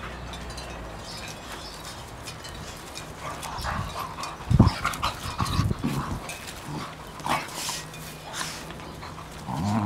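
Two dogs play-wrestling, with short low growls and grunts starting about three and a half seconds in. The loudest comes about four and a half seconds in.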